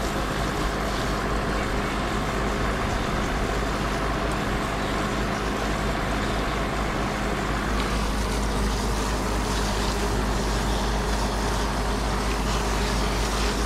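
A motor running steadily, with a constant rushing hiss over it and no change in speed.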